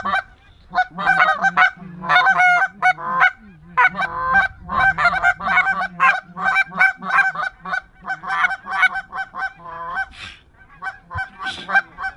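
Goose honking and clucking: fast, overlapping short honks that go on almost without a break, with a brief lull about ten seconds in.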